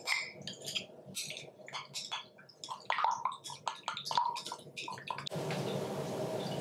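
Raw eggs being beaten with chopsticks in a glass measuring jug: rapid, irregular clicks and taps of the chopsticks against the glass over the wet slosh of the egg. About five seconds in, the clicking stops and a steady hiss of room noise takes over.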